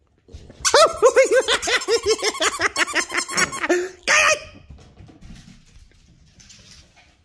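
A plush dog toy's squeaker squeezed in quick succession, about five or six high rising-and-falling squeaks a second for about three seconds, then one louder squeak, followed by faint rustling.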